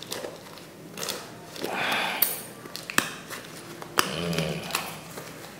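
A parcel being cut and pulled open with a small knife: scratching and tearing at the packaging, with a few sharp clicks and a longer scraping stretch about two seconds in.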